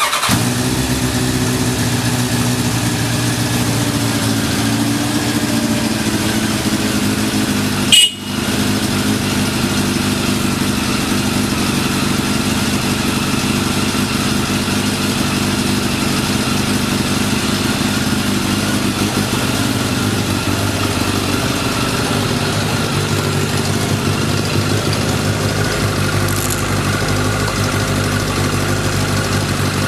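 Kawasaki ZX-10 motorcycle's inline-four engine catching on the starter and settling into a steady idle, with no abnormal noise, as the seller judges it. About eight seconds in there is one brief loud burst.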